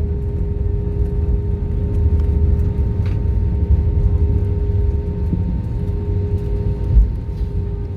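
Jet airliner cabin noise while taxiing after landing: a steady low rumble from the engines and the rolling aircraft, with a constant hum over it. A single low thump about seven seconds in.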